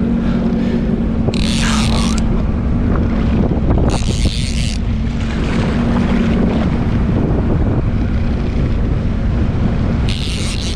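Jetski engine running steadily at trolling pace under heavy wind buffeting on the microphone, with three short hissing bursts of spray as it rides through the chop.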